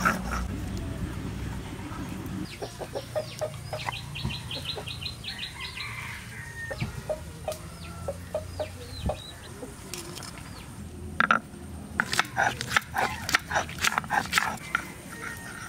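Chickens clucking in a yard, mixed with short knocks and scrapes of a stone roller on a flat grinding stone as spices and garlic are crushed. A dense run of knocks comes in the last few seconds and is the loudest part.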